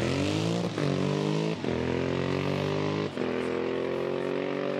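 Custom Triumph Thruxton-based parallel-twin motorcycle accelerating hard from a standing start in a sprint run. Its engine pitch climbs and drops at each upshift, three gear changes about a second apart.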